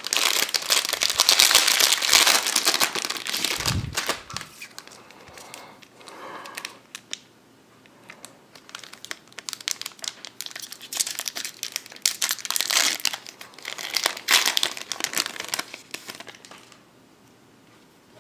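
Crinkly Pokémon TCG booster-pack packaging being torn open and handled: a long spell of loud crinkling and tearing, then quieter stretches broken by further bouts of crinkling. There is a soft low bump about four seconds in.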